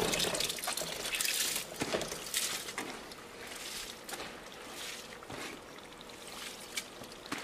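Washed raw rice, still wet with its rinse water, being poured from a sieve into a large pot of simmering tomato stew: a wet pouring and trickling. Louder for the first few seconds, then softer.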